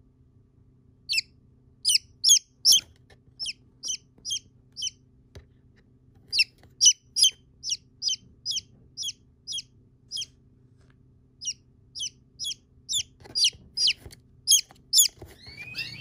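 A downy chick peeping from a cardboard box: about two dozen short, high, piercing peeps, each dropping in pitch, coming about two a second in runs with a couple of short pauses.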